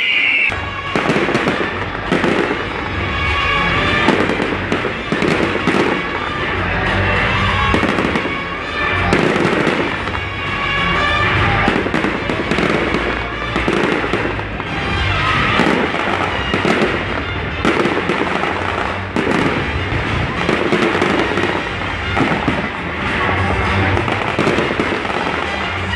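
Aerial fireworks bursting one after another in quick succession, a dense run of bangs and crackles.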